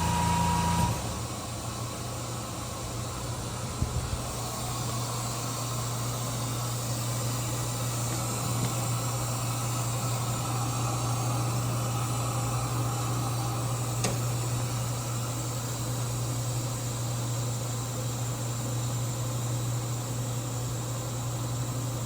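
Peak Scientific AB-3G nitrogen generator running in diagnostic mode: a steady low hum of its air compressors with a constant hiss of air. A louder tone drops away about a second in, and there are a couple of faint clicks.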